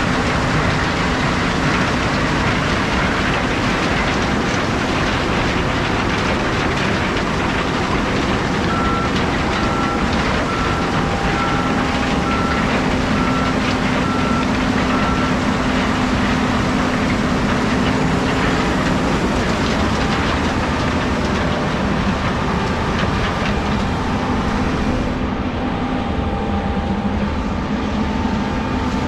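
Heavy harvest machinery running steadily in a corn field. From about nine to fifteen seconds in there is a row of short, evenly spaced beeps, roughly one a second. The sound turns duller near the end.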